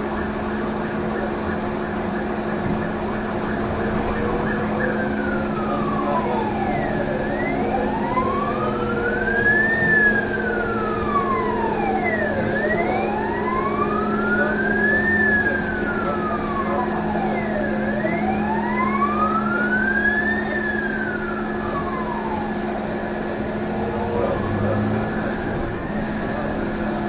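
An emergency vehicle siren in a slow wail, rising and falling about every five seconds, starting about four seconds in. Under it runs the steady hum of a trolleybus.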